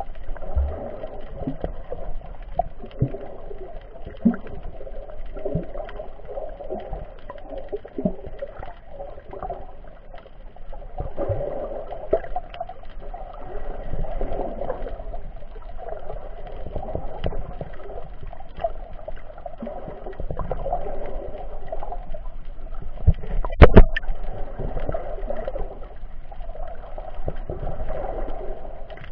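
Underwater sound picked up through an action camera's waterproof case: a steady wash of water noise with many small scattered clicks, and one loud knock about 24 seconds in.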